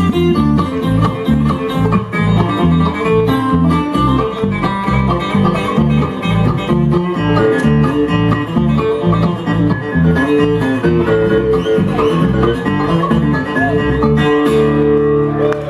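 Bluegrass band playing an instrumental outro, banjo and guitar picking over a steadily stepping bass line. Near the end the rhythm stops and a final chord rings on.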